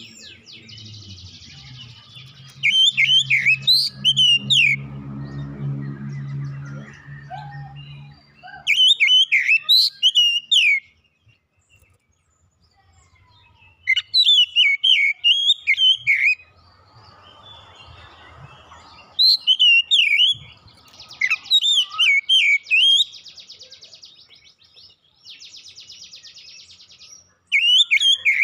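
Oriental magpie-robin singing in loud bursts of a few seconds each, about six phrases of rapid, varied whistled notes, broken by quieter pauses and by short buzzy, rasping notes.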